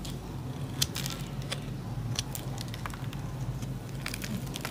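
Bar of mild soap being crumbled by hand, with soft, irregular crackles and patters as flakes break off and fall into a plastic tray, over a steady low hum.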